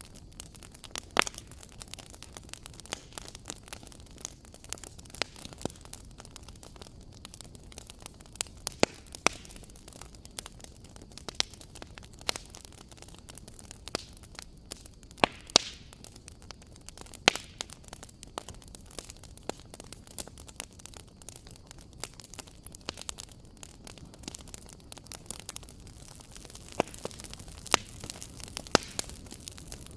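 Wood fire crackling in a fireplace: a steady low hiss under irregular sharp pops and snaps, a few louder ones standing out.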